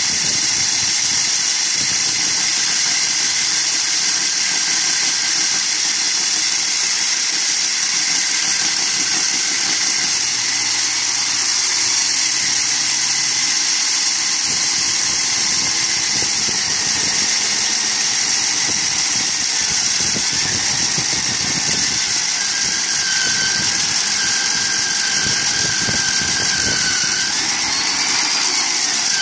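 Stand-mounted electric diamond core drill running steadily, its barrel bit grinding down into a concrete slab with a constant high whine. A thin squealing tone comes in during the last few seconds.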